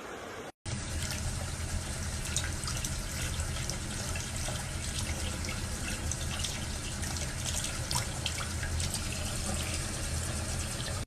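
Running water with many small splashes and drips. It starts after a brief cut about half a second in.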